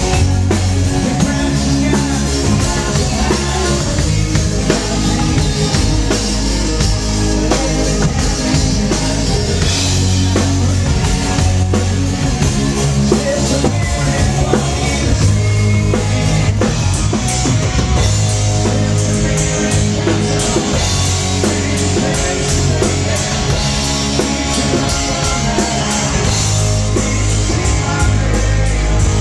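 Live rock band playing loud through a PA in an instrumental stretch: electric guitar over bass and a drum kit with a pounding kick drum, with no singing.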